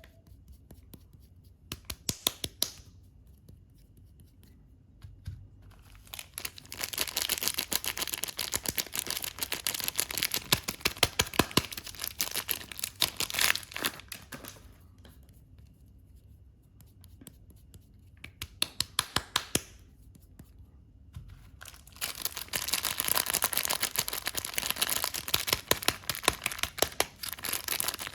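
Soap packaging being torn open and unwrapped by hand: crinkling and tearing with sharp crackles, coming in stretches several seconds long, with quiet pauses between them.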